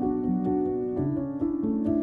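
Soft instrumental background music: a piano playing gentle notes and chords that change about every half second.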